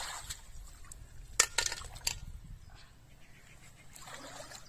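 Hands splashing in shallow pond water, then a few sharp clinks about a second and a half to two seconds in as freshwater snail shells knock against a metal pot.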